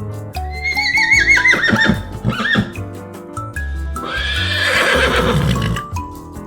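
A horse whinnying over a simple background tune: a loud trembling call that falls in pitch, followed a couple of seconds later by a second, breathier call that also falls away.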